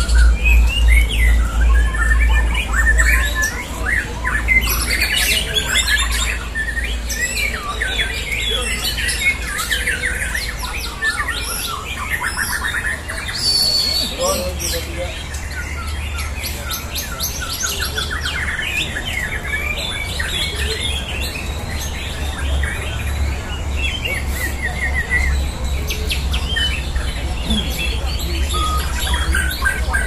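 Several caged white-rumped shamas (murai batu) singing at once against each other: dense, overlapping whistles, trills and rapid chattering phrases. A steady low rumble runs underneath.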